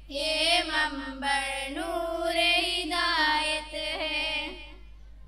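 Three girls singing the school tarana (Urdu school anthem) together into a microphone; the singing ends about five seconds in.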